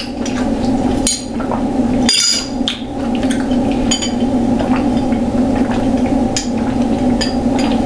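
A person drinking a cold drink, with several short, sharp clinks of the cup, over a steady low hum.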